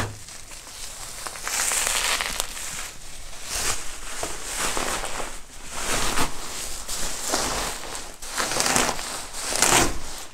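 Thick bubble wrap being pulled off a large cardboard box and bunched up: irregular crinkling and crackling that comes in uneven surges.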